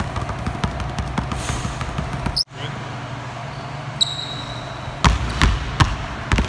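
Basketball dribbled rapidly and low on a hardwood gym floor, many quick bounces, until the sound cuts off suddenly. After the cut, a short sneaker squeak, then a few louder, separate bounces as two basketballs are dribbled, over a steady low hum.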